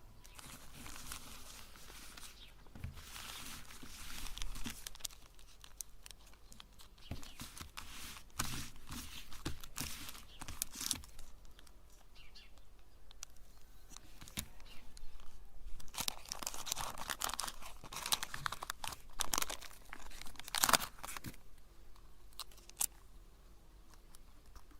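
Irregular crinkling, tearing and crunching with many sharp clicks, in uneven bursts, loudest about two-thirds of the way through: chocolate bars and their wrappers being handled and crushed in a meat grinder.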